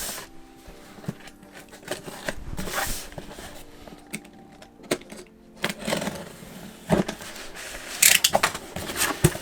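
Unpacking a parcel by hand: packaging rustling and crinkling, with scattered clicks and knocks from handling. A quick run of crinkling and clicking comes about eight seconds in.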